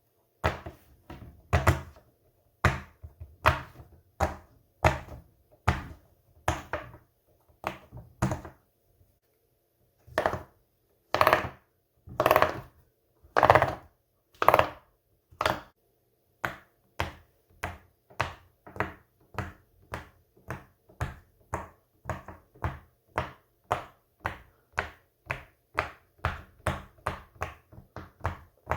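Silicone pop-it fidget toy having its bubbles pushed through one at a time, each a short sharp pop. After a pause about nine seconds in come a few louder pops, then a quicker even run of nearly two pops a second.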